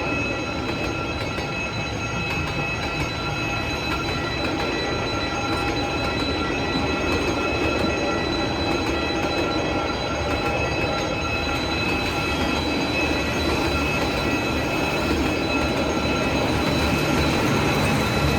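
Train running along the track: a steady rumble of wheels and running gear with a high, steady wheel squeal, growing slightly louder toward the end.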